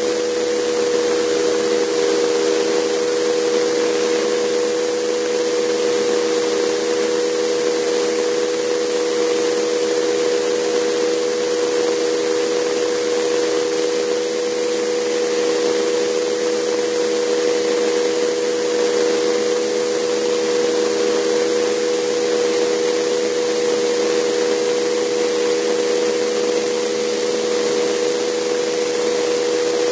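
JetCat PTH-2 turboshaft turbine and rotor of a radio-controlled Vario Alouette II scale helicopter running steadily in flight: a few steady held tones over an even rushing hiss, heard from a camera mounted on the airframe.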